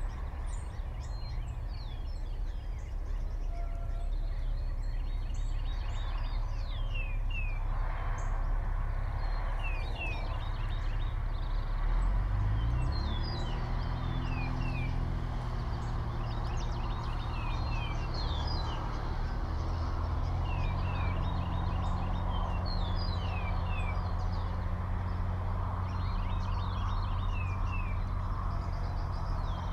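A songbird singing the same short phrase over and over every few seconds, a quick run of high notes ending in a few downward slurs. About twelve seconds in, a low engine hum starts, rises briefly in pitch and then holds steady.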